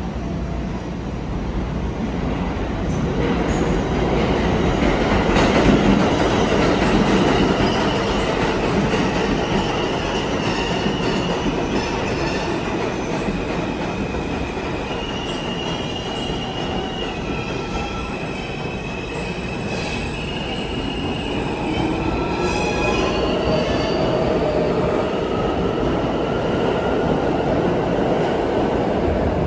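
R160 subway train in the station, with a steady rumble and high wheel squeal. From about two-thirds of the way in, a rising whine of its traction motors as it pulls out and picks up speed.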